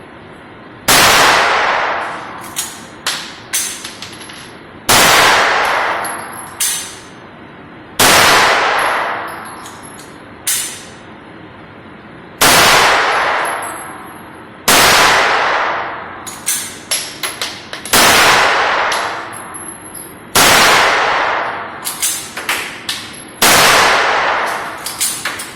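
Semi-automatic pistol fired eight times, slowly and unevenly, a few seconds between shots, each shot a loud crack with a long fading echo. Lighter metallic clinks and knocks come between the shots.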